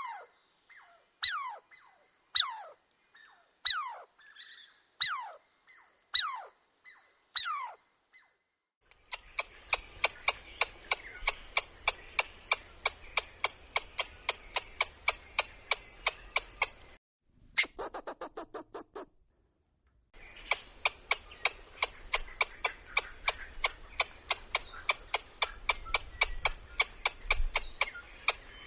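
A squirrel calling: first a string of sharp calls that fall in pitch, a little over a second apart, then long runs of rapid clicking chirps, about four a second, broken about two-thirds of the way in by a short buzzing trill.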